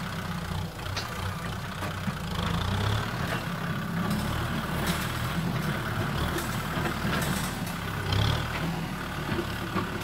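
Kubota M6040 SU tractor's diesel engine running steadily under load as the tractor works dry field soil, with a few brief knocks.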